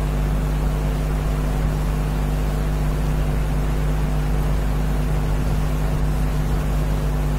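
A steady low electrical hum with a hiss over it, unchanging throughout. This is the background noise of the recording setup, with no other sound standing out.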